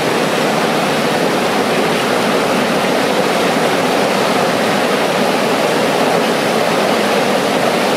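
Whitewater rapids of a swollen rocky stream rushing over boulders and ledges: a loud, steady rush of water.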